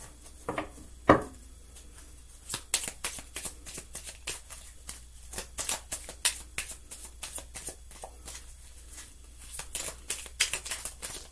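A deck of oracle cards being shuffled by hand: a quick, uneven run of soft card-on-card slaps and flicks starting about two and a half seconds in, after one sharper tap about a second in.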